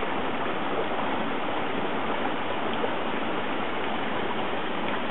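Small mountain stream running, a steady, unbroken rush of water.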